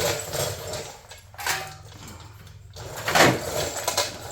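A sheet-metal hood patch panel scraping and knocking against the hood as it is test-fitted. There are irregular scrapes, the loudest about a second and a half in and again about three seconds in.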